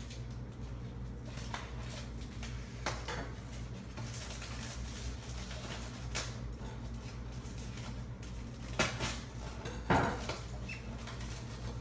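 Small clicks, knocks and rustles of statue parts and accessories being handled and fitted, over a steady low hum; the loudest knock comes about ten seconds in.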